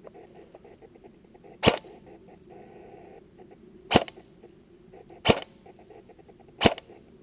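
Airsoft rifle firing four single shots, each a sharp snap, spaced one to two seconds apart.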